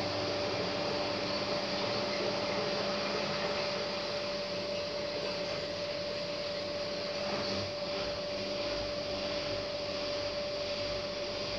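Hotpoint front-loading washing machine running between the end of its wash and the first rinse: a steady mechanical hum with a single high, even tone over it.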